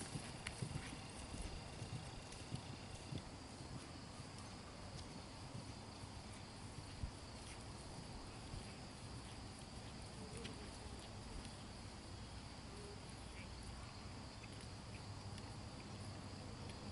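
Faint hoofbeats of a horse being ridden on grass, with scattered sharp clicks most frequent in the first few seconds. A steady high insect buzz runs underneath.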